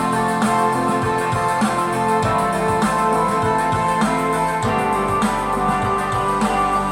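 Instrumental rock music with guitar and drums at a steady beat, played back through a portable Bluetooth speaker for a sound test.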